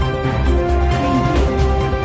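Theme music with sustained synth notes over a steady pulsing bass.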